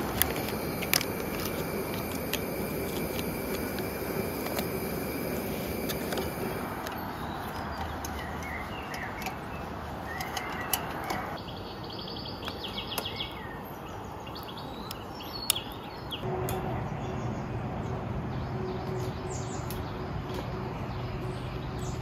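Small birds chirping in short calls over a steady rushing background, with a few light clicks and knocks.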